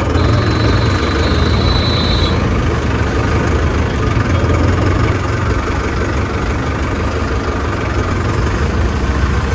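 Diesel engine of a new Mahindra Arjun Novo 605 4WD tractor running steadily as the tractor drives along in third gear. A thin, high, steady tone sounds alongside it for about the first two seconds.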